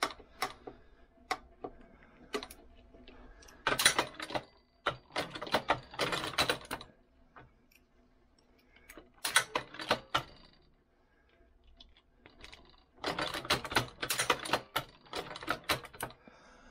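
Tools and metal press parts clicking and rattling in four bursts of rapid clicks, with scattered single clicks between, as a wrench is worked around the primer punch nut of a Hornady 366 shotshell press.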